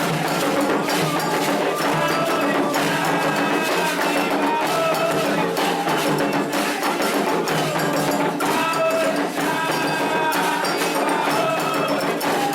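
Candomblé ritual music: atabaque hand drums and a metal agogô bell keep a fast, steady rhythm while voices chant a song to the orixás over them.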